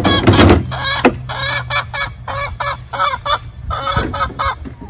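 Chickens clucking in many short, repeated calls, with a brief loud rush of noise at the start and a sharp click about a second in.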